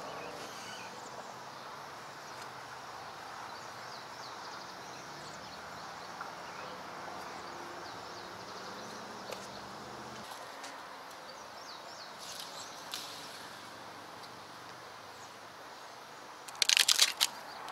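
Quiet outdoor ambience with faint bird chirps over a low steady hum that stops about ten seconds in. Near the end comes a short, loud burst of scuffing steps close to the microphone.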